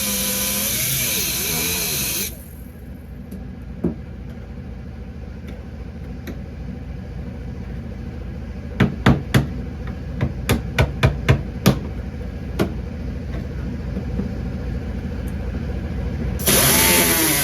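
A power tool cuts at old welds in a car's sheet-metal floor, stops after about two seconds, then a run of about eight sharp knocks follows before the tool starts cutting again near the end.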